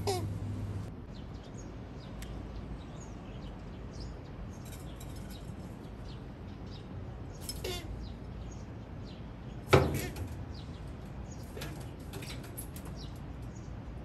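Doves giving short falling honk calls, angry food-guarding calls in a squabble over a feeding dish: one right at the start, another at about eight seconds, then a loud sudden sound at about ten seconds. Faint high chirps of small birds run underneath.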